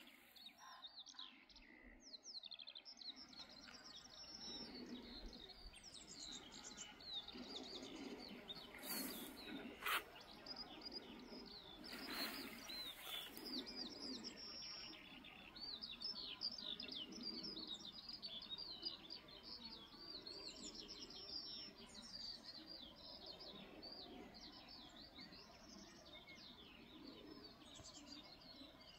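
Faint birdsong: many small birds giving quick, high, overlapping chirps and song phrases, with a single sharp click about ten seconds in.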